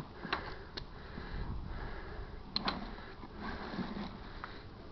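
Saddleback Leather briefcase being unbuckled and opened by hand: soft rustling of the leather flap and straps, with several sharp clicks from the metal buckles and rings.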